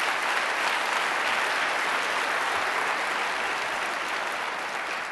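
Large audience applauding steadily, easing off a little near the end.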